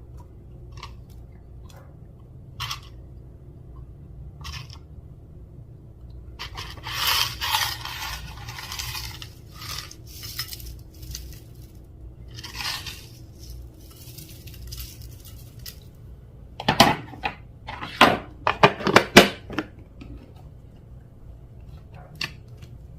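Hands working slime with its containers and tools: scattered clicks, a few seconds of scraping and crackling about a third of the way in, and a quick run of loud, sharp knocks and clinks about three-quarters of the way in.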